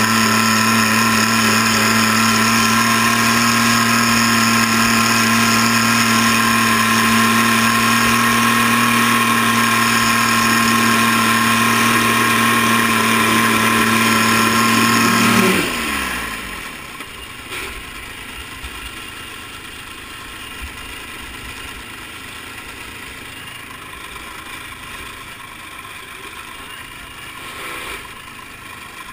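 Diesel garden tractor engine running flat out at a steady pitch down the pulling track. About fifteen and a half seconds in, it is throttled back as the pull ends: its pitch falls away sharply and it drops to a much quieter level.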